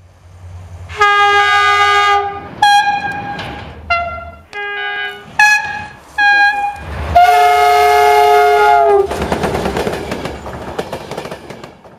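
Train locomotive horn: a long blast, several shorter blasts, then another long blast, over a low engine rumble. After the last blast a passing train's wheels clatter rapidly over the rail joints until the sound cuts off.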